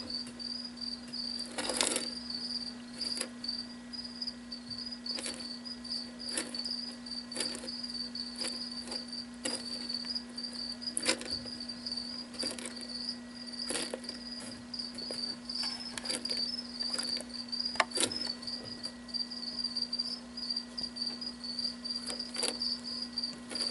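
A cricket chirping in a continuous high, pulsing trill over a steady low hum, with scattered sharp clicks and ticks as a jeweled lacerta bites and pulls at a chunk of rabbit heart on gravel.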